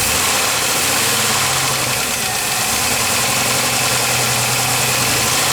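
2003 Chevy Blazer's 4.3-litre V6 running steadily with a constant knock, which the owner suspects is a lifter or a rod bearing.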